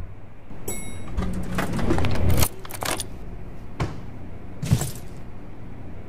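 Keys jangling among rustling and clattering household handling sounds, with a few sharp knocks; the loudest knock comes near the end.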